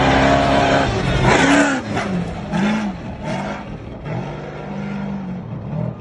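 Off-road race truck's engine revving hard as it speeds past on a dirt trail, its pitch rising and falling again and again with the throttle. It is loudest in the first second or so, then drops away as the truck goes by.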